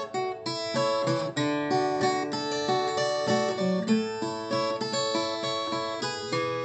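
Viola caipira (Brazilian ten-string guitar) playing an instrumental passage alone, a quick run of plucked notes with no singing.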